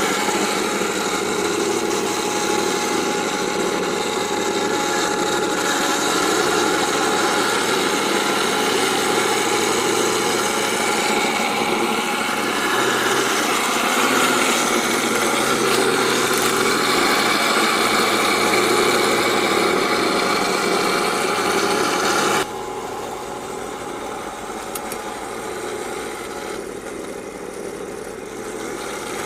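MATO 1/16 all-metal Tiger I RC tank running, its electronic sound unit playing a steady tank-engine sound. About 22 seconds in the sound drops suddenly to a lower level.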